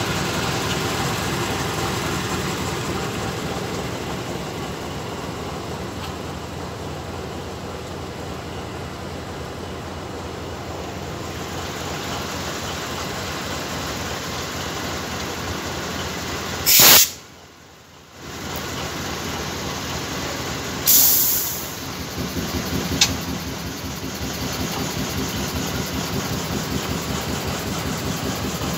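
D9E diesel-electric locomotive idling steadily. A little past halfway a loud, sharp hiss of released air breaks in, the sound drops away briefly, and a second shorter hiss follows about four seconds later, then a single click.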